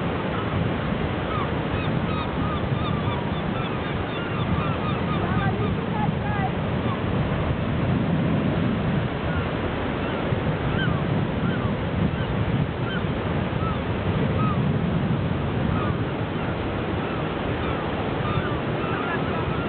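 A flock of gulls calling, many short calls overlapping throughout, over a steady rushing background noise.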